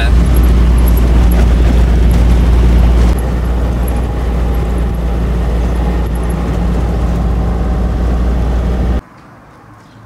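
Land Rover Defender driving along a dirt track, heard from inside the cab: a loud, steady low rumble of engine and tyres that eases a little about three seconds in. About nine seconds in it cuts off abruptly to quiet outdoor background with a few faint clicks.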